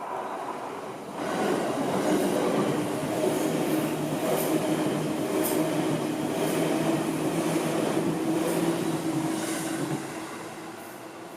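Seibu Ikebukuro Line electric commuter train passing close by. It comes in suddenly about a second in and runs loud with a steady hum, its wheels clicking over the rail joints about once a second, then fades away near the end.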